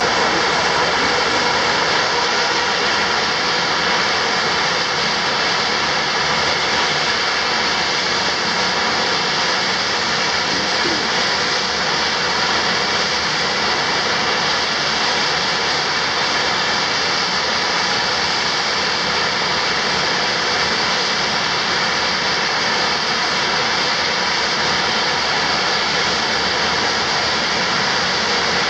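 Garrett TPE331 turboprop engines of a Sita Air Dornier 228 running at ground idle while the aircraft stands parked: a loud, steady whooshing noise with a high whine held on one pitch.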